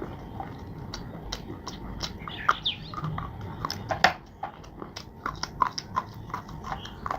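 Close-up biting and chewing of crunchy clay: irregular crisp crunches and cracks, the loudest about four seconds in.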